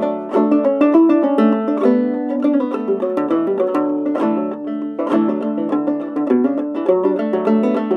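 Old-time clawhammer banjo tune, a quick, steady run of plucked notes.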